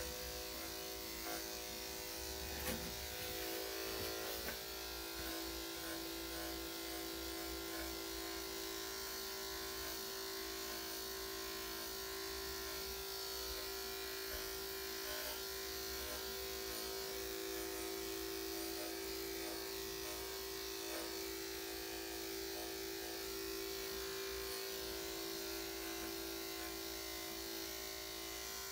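Electric dog grooming clippers with a #7 blade running steadily, a constant even hum.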